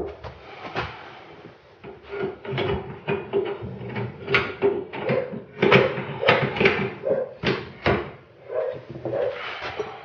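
Irregular clicks and knocks, several a second, as tools and metal suspension parts are handled and tapped during rear suspension repair.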